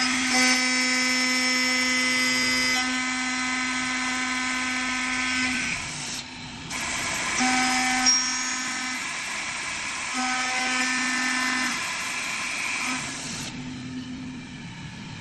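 Faster two-head CNC lock-hole drilling machine running, its spindle motors giving a steady whine. The whine holds for about six seconds, breaks off, then comes back in shorter runs of a second or two before fading out.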